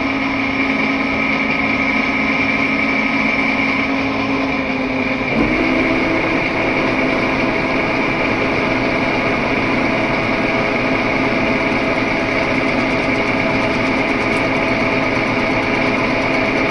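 Cincinnati milling machine running steadily while cutting a valve seat in a cylinder head, with a steady whine. The pitch steps up slightly about five seconds in.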